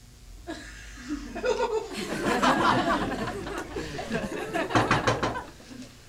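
Audience laughing together, swelling from about half a second in to a peak in the middle and dying away near the end.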